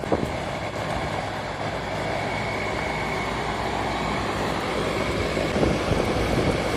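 HVAC vacuum pump running steadily, evacuating the newly brazed refrigerant lines and indoor coil.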